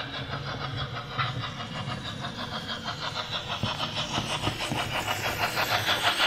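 Sound-decoder steam chuffing from an HO-scale model steam locomotive: a steady, even rhythm of chuffs over a low running hum, growing louder near the end.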